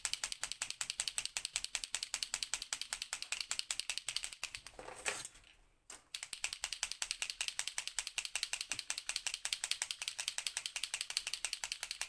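A splatter paint pen being shaken hard, its mixing ball clicking back and forth about ten times a second, with a short pause about five seconds in.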